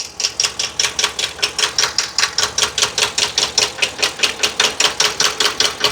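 Ford 7.3 L gasoline V8 heard at idle through a screwdriver held to cylinder 3: a rapid, even ticking, about seven or eight ticks a second. This is the abnormal noise the mechanic traces to cylinder 3, which rules out valve, timing and rod problems and which he suspects is in the camshaft.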